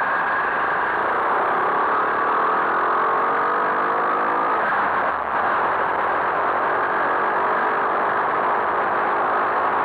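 Skyteam Monkey 125 cc single-cylinder four-stroke engine under way, its pitch rising as it pulls through a gear. It eases off briefly about five seconds in, then pulls again.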